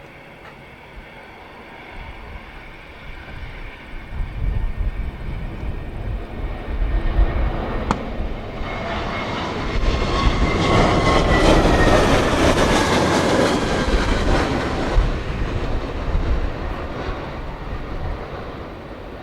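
Airbus A320 jet engines growing louder to a loud roar about halfway through, with a falling whine as the aircraft passes, then fading away: the aircraft going around. Gusts of strong wind buffet the microphone with a low rumble throughout.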